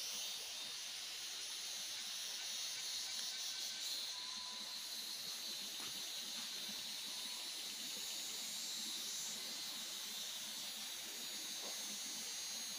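Steady, faint, high-pitched outdoor hiss with no distinct events, the background of a wet, misty hillside.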